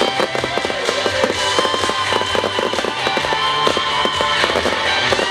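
Fireworks going off in rapid crackles and pops, heard over music with held notes and a bass line.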